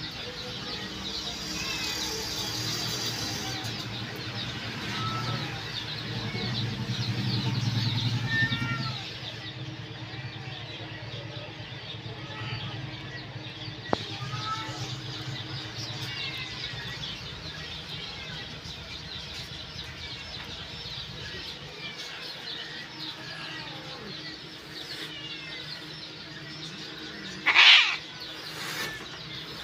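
Many small birds chirping continuously, over a low hum that stops about nine seconds in. Near the end a caged cat lets out one short, loud hiss.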